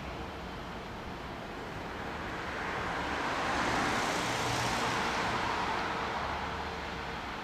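A vehicle passing by: a rushing noise that swells for a few seconds around the middle and then fades.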